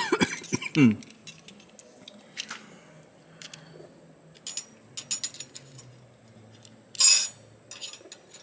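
Light metallic clicks and clinks of steel brake pad hardware clips being handled and compared, with one louder clatter about seven seconds in.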